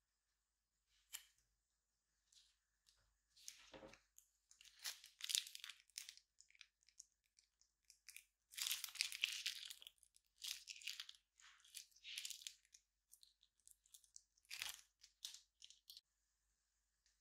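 Clear slime with sequins squeezed from a plastic piping bag, giving quiet, irregular bursts of crinkling and crackling.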